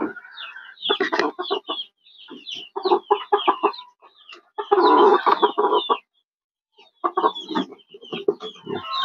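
Chickens clucking in short bursts, with a louder run of calls about five seconds in and a brief lull after it.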